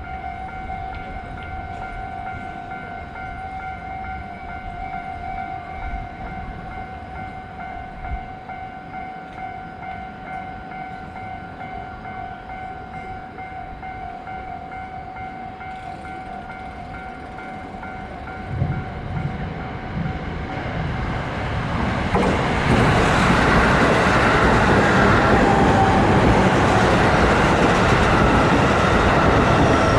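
Japanese level-crossing warning bell ringing steadily. A Jōban Line train then passes through the crossing from about two-thirds of the way in, its loud wheel and car noise running to the end.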